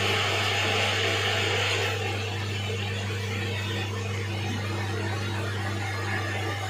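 A steady low hum with an even hiss over it, the hiss dropping a little about two seconds in.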